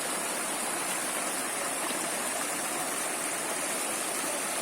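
Flowing stream water, a steady even rush with no breaks.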